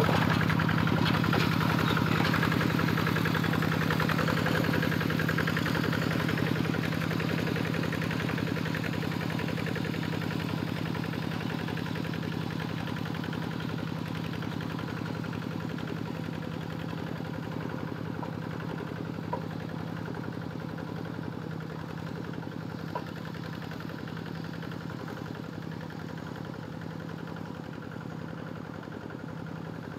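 Two-wheel hand tractor engine running steadily, growing gradually fainter as the tractor moves away.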